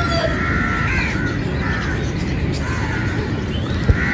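Short bird calls a second or so apart over steady low background noise, with a single sharp knock near the end.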